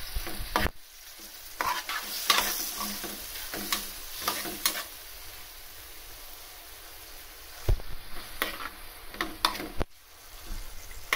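Ridge gourd, onion and dried red chillies sizzling in oil in a shallow metal kadai while a steel spoon stirs them, scraping and clicking against the pan in short bouts, with a calmer spell of plain sizzling in the middle.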